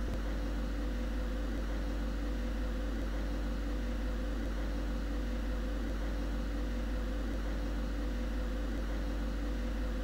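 A steady electrical hum with a few constant low tones under an even hiss, unchanging throughout, with no taps or other events.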